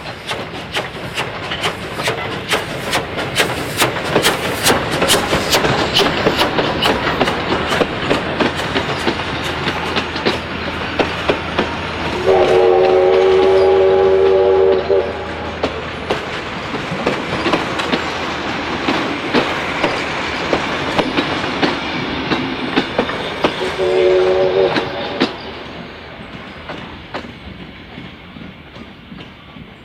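Steam train hauled by a Victorian Railways J class locomotive passing and drawing away, its carriage wheels clicking rapidly over the rail joints. The locomotive's steam whistle sounds one long blast midway and a shorter blast near the end, and the train's sound then fades.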